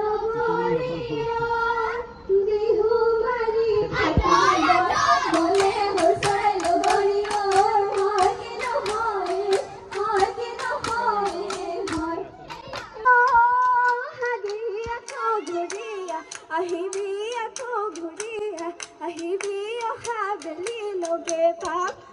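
Women singing a Jeng Bihu song, with rhythmic hand-clapping coming in about four seconds in. The claps keep a steady beat of about two to three a second under the melody.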